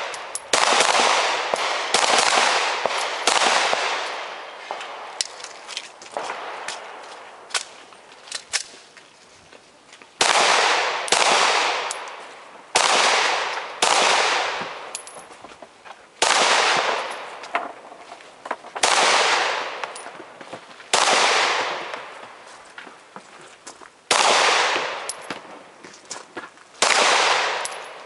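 Glock pistol firing about twenty shots, mostly in quick pairs, each shot ringing off in a long echo. There is a lull of several seconds from about four to ten seconds in.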